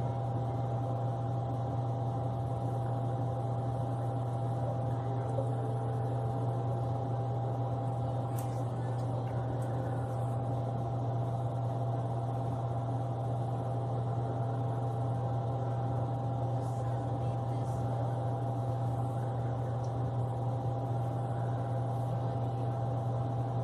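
Steady low hum with a fainter, higher steady tone above it, unchanging, with a few faint ticks.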